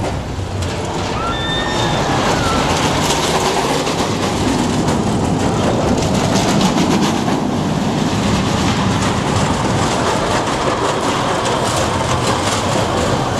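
Schwarzkopf steel looping roller coaster train running along the track and through the loop: a steady rumble of wheels with a fast rattle, growing louder over the first couple of seconds.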